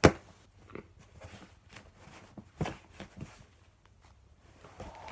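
Handmade slime being squeezed and stretched by hand, giving scattered small clicks and pops. A sharp knock opens it, and a louder pop comes about two and a half seconds in.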